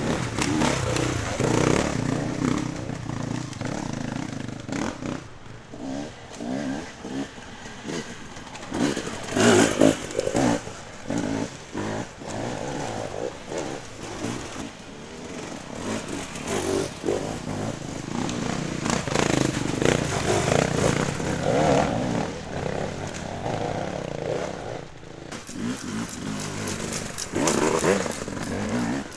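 Enduro dirt bike engines revving hard and blipping the throttle as riders climb a rocky trail, the engine note surging up and down in pitch with sharp bursts.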